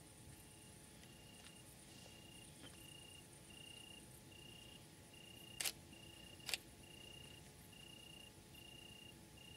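Crickets chirping faintly at night: an even chirp about twice a second over a fainter, higher continuous trill. About halfway through come two sharp clicks a second apart.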